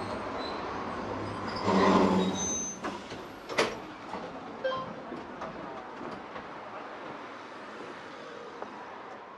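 On-board sound of a Tosaden Kōtsū 700-series tram: a steady rumble of the car, with a short loud pitched tone about two seconds in, a sharp knock a little after, and a few lighter clicks. The sound fades out at the very end.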